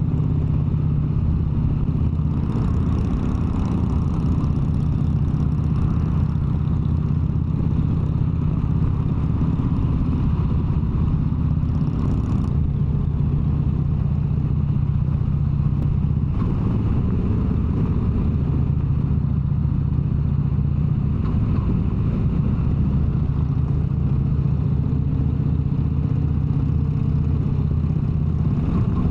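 Harley-Davidson V-twin motorcycle engine running steadily at cruising speed on the highway. A hiss of wind noise comes in, drops away for a few seconds around the middle, then returns.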